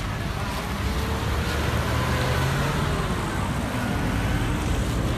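Steady road traffic: car and pickup engines running and tyres rolling on asphalt close by.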